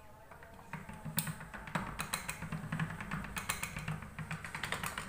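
Hand-cranked stainless steel pasta roller clicking and rattling as a piece of dough is cranked through its rollers at the thickest setting. A quick, irregular run of clicks over a low rumble starts about a second in.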